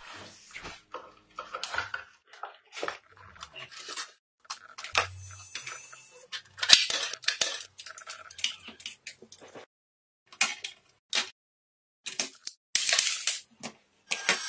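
Irregular clicks, knocks and scraping as hands handle and take apart a disc player's plastic casing, circuit board and laser mechanism, with short pauses between bouts of clatter.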